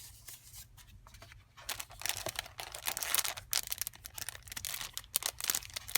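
Craft packaging being handled: crinkling and rustling of paper and plastic with many small ticks. It starts faintly with light taps and turns into dense crinkling about a second and a half in.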